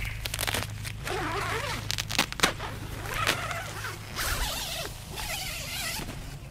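Tent door zipper pulled open in short rasps, with nylon tent fabric rustling and small handling clicks. A low steady hum runs underneath.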